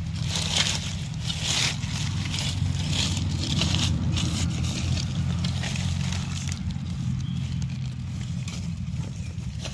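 Dry fallen leaves and twigs rustling and crackling as they are stepped through and pushed aside, with the busiest rustling in the first few seconds, over a steady low hum.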